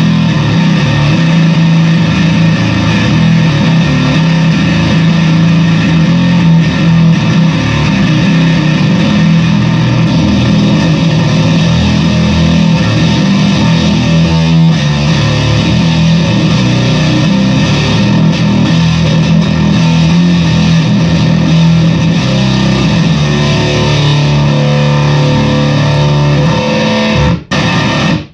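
Fender Squier Bass VI, a six-string bass, played through a fuzz pedal: thick, heavily distorted sustained notes. The sound breaks off sharply twice near the end.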